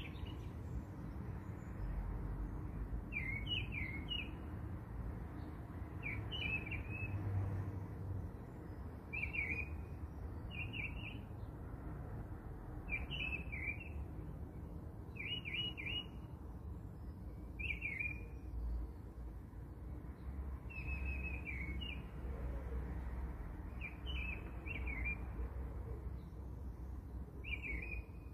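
A small bird chirping: short runs of high chirps that repeat every two or three seconds, over a steady low background hum.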